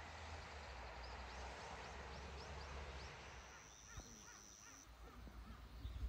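Faint countryside ambience: a steady rushing hiss over the first three seconds or so, with a run of short repeated animal calls throughout and a thin high steady whine for a second or two in the middle.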